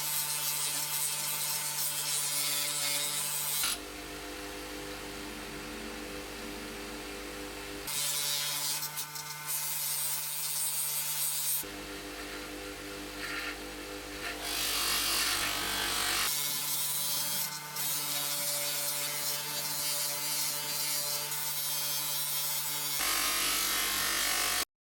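Power tools working a metal part in short, hard-cut clips: a louder motor with a steady hum and a hissing grind alternates with a quieter, deeper motor drone. The sound cuts off abruptly near the end.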